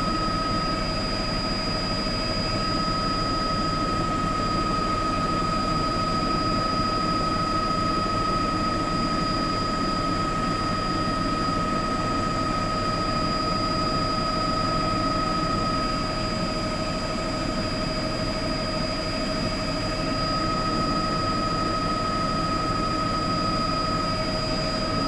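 News helicopter's engine and rotor noise heard from inside the cabin: a steady, even drone with a constant high-pitched whine.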